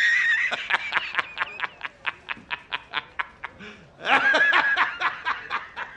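High-pitched snickering laughter: a held high note, then a quick run of short 'heh' pulses, about six a second, fading away, with a second burst of laughter about four seconds in.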